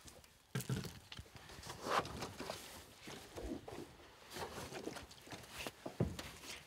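Scattered hollow knocks and thuds with some rustling as plastic gallon water jugs are handled and set down in a pickup truck bed.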